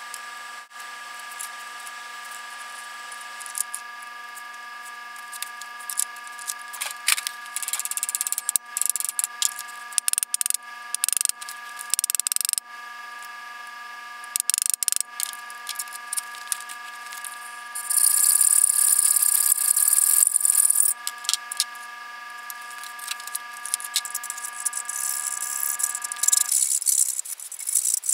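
Hand metalworking at a bench vise: scattered metallic clicks and clinks, and a few seconds of high scraping, like a file on steel, about two-thirds of the way through. Under it a steady chord of held tones sounds throughout and cuts off suddenly near the end.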